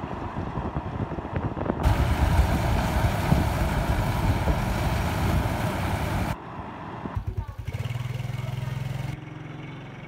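Small tracked rice combine harvester running in the field, a loud noisy rumble that swells about two seconds in. About six seconds in it breaks off abruptly and gives way to a steadier, lower engine hum.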